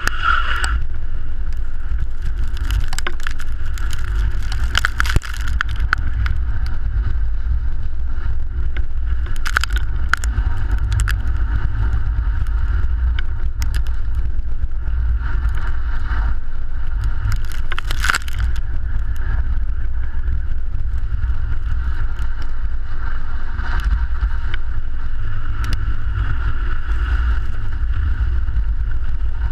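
A car driving on packed snow and ice, heard from a camera mounted low on its bodywork: a steady low rumble of road and wind noise, with scattered clicks and crunches from the tyres on the icy surface.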